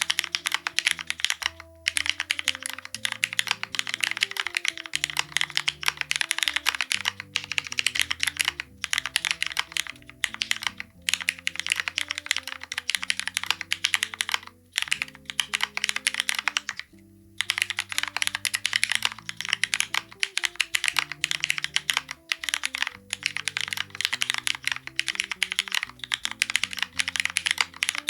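Steady, fast typing on a mechanical keyboard with Cherry Hyperglide MX Black linear switches on an aluminium plate, under GMK keycaps, with short pauses at about two seconds in and around the middle. Background music with sustained low notes plays underneath.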